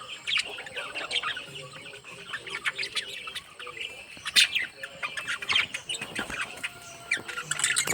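Small pet parrots, lovebirds and budgies, chirping and chattering: a busy run of many short, sharp calls overlapping, with one louder squeak about four and a half seconds in.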